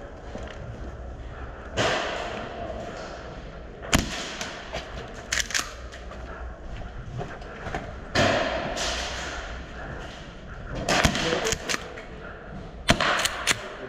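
Airsoft gunfire: scattered sharp cracks, some single and some in quick clusters of two or three.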